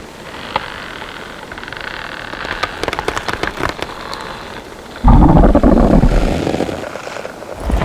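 Designed organic creature sound effect: a crackling, clicking texture, then a sudden loud, deep creature sound about five seconds in that fades away over a couple of seconds.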